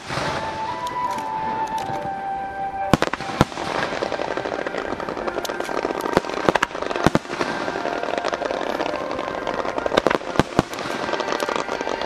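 Aerial fireworks shells by Saiki Fireworks bursting in quick succession, with sharp bangs and dense crackling that thickens about three seconds in. Music plays over loudspeakers beneath the bursts.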